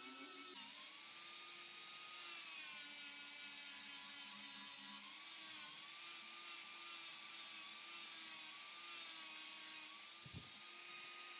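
Angle grinder running with a grinding disc against a steel hammer head: a steady motor whine that dips and recovers in pitch as the disc is pressed on and eased off, over a constant hiss of grinding.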